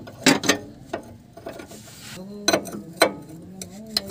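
Sharp metallic clicks and clinks of a wrench being fitted to and worked on the nut of a Suzuki Multicab's drag link at the center post, about half a dozen irregular knocks.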